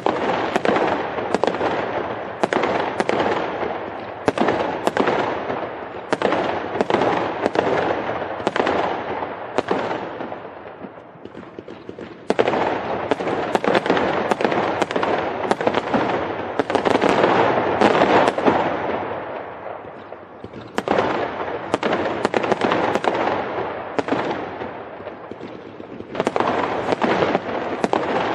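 Fireworks going off in rapid barrages: a dense run of sharp bangs, each trailing into crackle, with brief lulls where the volleys thin out before building again.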